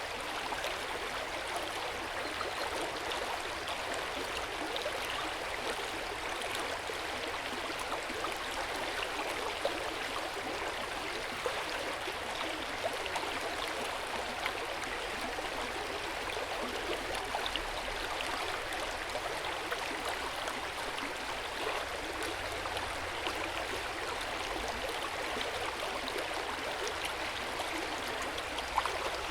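Hot-spring water pouring and splashing steadily into an outdoor bath, with a continuous gurgling flow and small splashes here and there.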